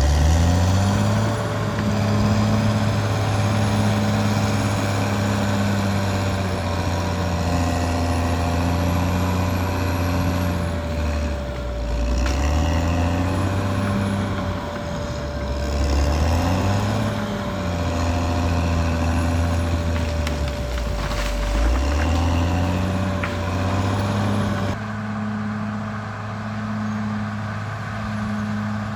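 Caterpillar D6R XL bulldozer's diesel engine working under varying load, its pitch dipping and recovering several times as it lugs and picks up again, with a thin steady whine over it. Near the end the sound changes abruptly to a steadier engine note.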